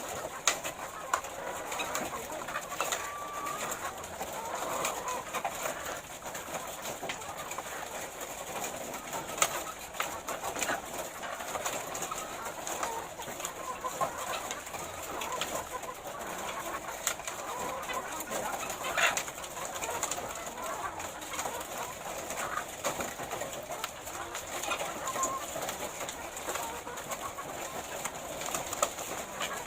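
A flock of caged laying hens clucking and murmuring continuously, many birds calling over one another, with scattered sharp clicks.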